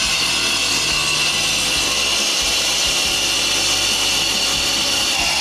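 Power tool grinding steadily at full speed: a continuous high whine over a dense hiss, raising heavy dust.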